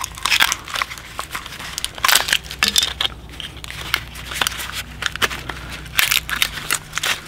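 Cracked plastic casing of a Toshiba laptop battery pack being pried apart by hand, crackling and snapping in irregular bursts as the 18650 cell pack is pulled free of it.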